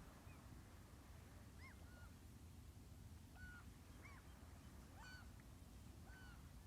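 Faint calls of distant birds: short calls that rise and fall in pitch, one every second or so, over a low steady rumble.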